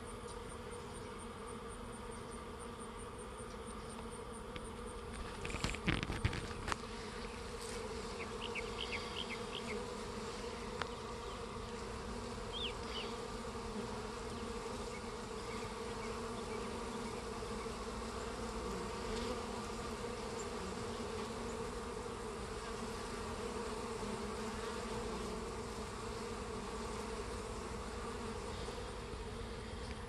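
Honeybees buzzing around a hive entrance, a steady hum. About six seconds in there is a brief cluster of sharp knocks.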